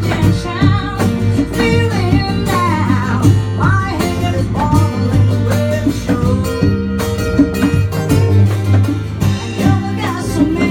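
Live acoustic band music: a voice singing over strummed acoustic guitar, a steady bass line and hand-struck percussion.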